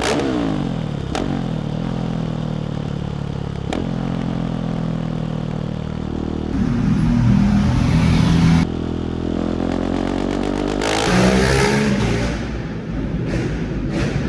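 Husqvarna 701 SM's single-cylinder engine through a LeoVince full exhaust system, echoing in a tunnel. It winds down at first, with a few sharp cracks, then pulls hard and the throttle is snapped shut about halfway through. It revs up again and falls off near the end.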